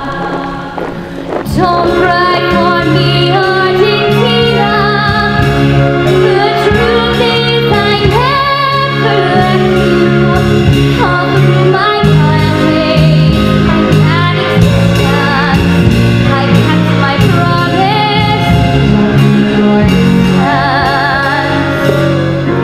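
Musical-theatre song: a woman singing with wide vibrato over steady instrumental accompaniment, swelling louder about a second and a half in.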